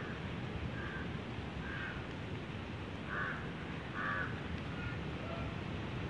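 A crow cawing: four short, harsh caws in two pairs, each pair about a second apart, over a steady low background noise.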